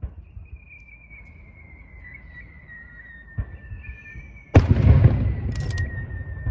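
Aerial firework shells fired from mortars: two launch thumps, each followed by a long high whistle that slowly falls in pitch as the shell rises, then a loud shell burst about two-thirds of the way through, with crackling shortly after.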